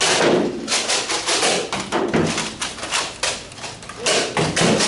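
Irregular thumps and taps during a Nerf Rival foam-ball fight: blasters firing and balls striking and bouncing off surfaces, many hits in quick succession.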